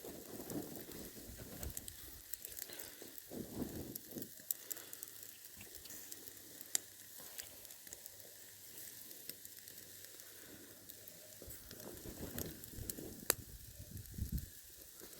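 Wood fire of thick logs and kindling burning in a grill, crackling with scattered sharp pops over a soft hiss. A few low rushing swells come and go, the largest near the end.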